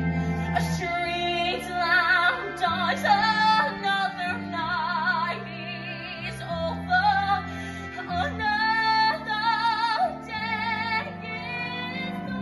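A female voice sings a slow theatre ballad with wide vibrato on its held notes, over long, sustained low accompaniment notes.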